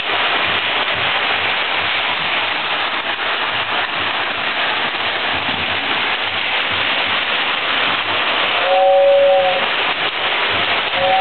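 Lionel toy steam locomotive on three-rail tinplate track, giving a steady rushing noise from its running. About nine seconds in, its whistle sounds one two-tone blast lasting about a second.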